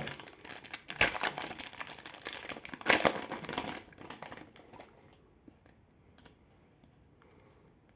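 Foil wrapper of a Panini Flux basketball card pack being torn open and crinkled by hand, loudest about one and three seconds in. It dies away after about four seconds as the cards are slid out and handled, with a few faint ticks.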